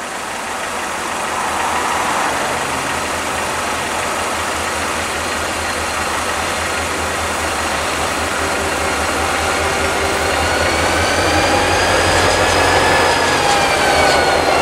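Approaching CSX diesel freight locomotive, its engine a low steady drone growing louder as it nears. From about ten seconds in, thin high squealing tones that slowly waver in pitch join it: wheels squealing on the rail.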